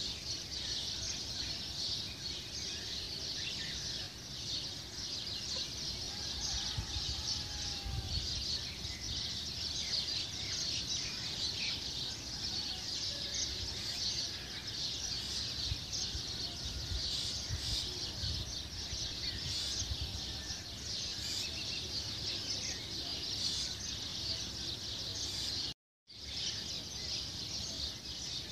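Many small birds chirping together in a dense, steady chorus over a low background rumble. The sound cuts out briefly near the end.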